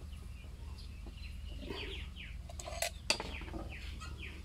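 Small birds calling in short, quickly falling chirps, a few at a time, with two sharp clicks about three seconds in.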